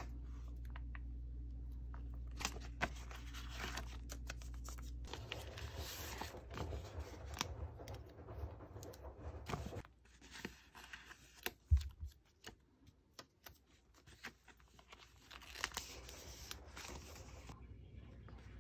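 Sticker sheets and clear plastic binder sleeves being handled: rustling, crinkling and scraping of paper and plastic with many small clicks and taps, and one sharper knock about twelve seconds in.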